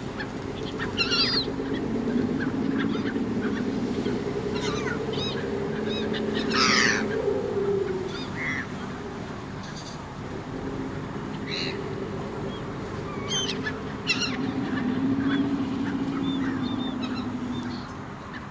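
Gulls calling again and again, short sharp cries scattered through, over a low steady hum that slowly wavers in pitch.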